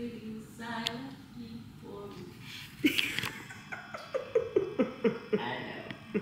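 A woman sings a few held notes, then breaks into laughter, a quick run of short 'ha' bursts each dropping in pitch.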